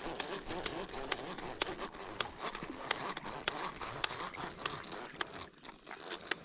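Baitcasting fishing reel being cranked to wind in line, its gears and handle giving a rapid, irregular ticking. A few short high chirps sound near the end.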